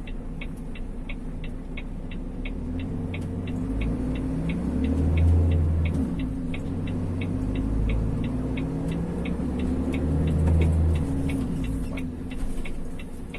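Heavy vehicle engine heard from inside the cab, its pitch rising and falling as it pulls, loudest about five and ten seconds in. A steady fast ticking, about four clicks a second, runs alongside.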